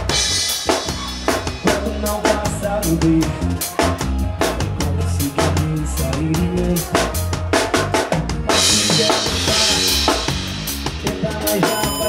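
Live band playing an instrumental passage, led by a Pearl drum kit with a steady beat of bass drum and snare hits over a low bass line. A wash of cymbals swells up about two-thirds of the way through.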